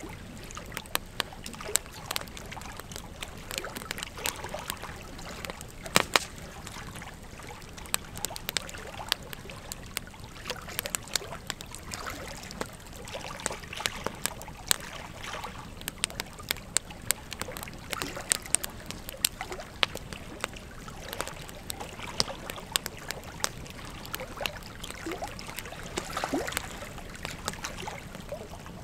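Wood fire of stacked logs burning, crackling with frequent sharp pops over a steady hiss; the loudest pop comes about six seconds in.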